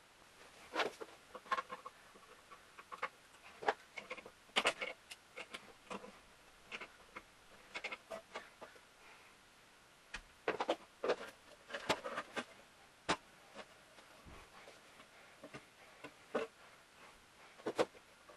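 Scattered light knocks and clacks of old wooden table parts being handled and taken apart by hand, some coming in quick clusters.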